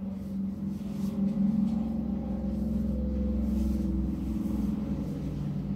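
Low, steady mechanical hum of a motor or engine, swelling in over the first second and then holding.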